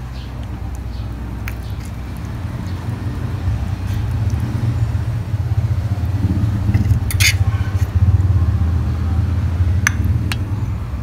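A ceramic bowl clinking a few times against a stainless steel mixing bowl as braised chicken feet and eggs are scooped into it, the sharpest clink about seven seconds in and two lighter ones near the end. Under it is a low rumble that builds toward the middle and then eases off.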